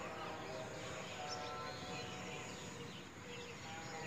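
Faint outdoor ambience with many small birds chirping, in quick short calls overlapping one another.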